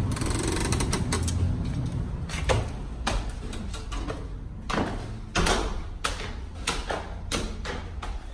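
A glass entrance door being pushed open, then a string of irregular knocks and thuds from footsteps climbing indoor stairs.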